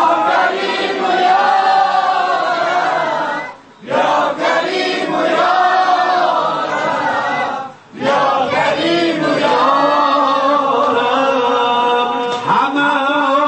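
Voices chanting an Afghan noha, a Shia mourning lament, as a chorus in long sung phrases, with two short breaks about four and eight seconds in.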